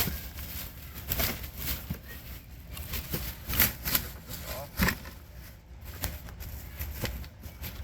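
Cardboard shipping box and packing material being handled: irregular rustling, scraping and knocks, the loudest about three and a half and nearly five seconds in, over a steady low rumble.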